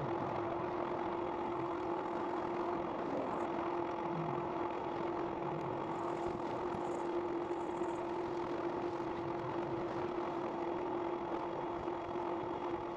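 Electric bike's hub motor whining at a steady pitch while cruising under low pedal assist, over a steady rushing noise.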